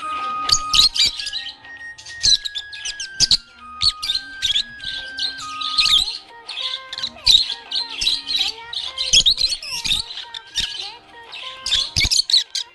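Budgerigar chirping and warbling in rapid, busy runs over background music: a simple tune of held notes in the first half.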